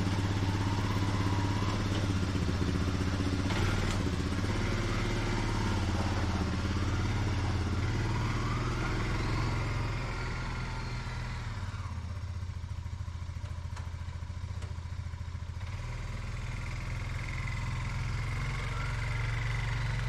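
ATV (four-wheeler) engine running as it pulls out and rides over fresh snow. It gets quieter from about ten seconds in and louder again near the end.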